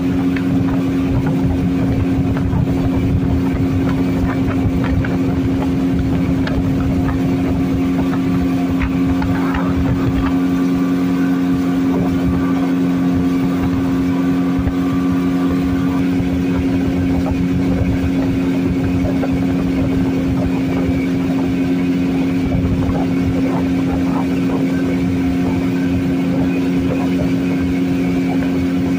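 Engine of a wooden longboat running steadily under way, a constant drone that holds one pitch.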